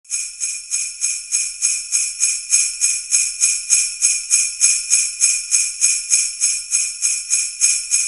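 Jingle bells shaken in a steady, even rhythm, about three and a half shakes a second.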